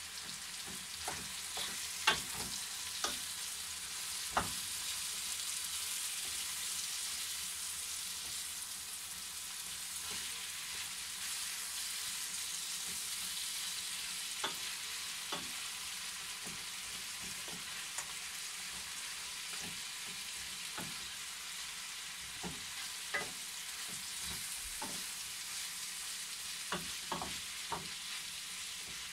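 Chicken pieces and sliced onions sizzling steadily in a frying pan, with irregular knocks and scrapes of a wooden spoon against the pan as they are stirred. The sharpest knocks come about two seconds in, around four seconds in, and a cluster near the end.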